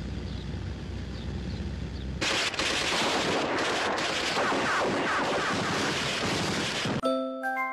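Old film soundtrack: a low rumble, then, about two seconds in, a dense rattle of rapid gunfire that goes on for about five seconds. Near the end it cuts off and bright notes of mallet-percussion music come in.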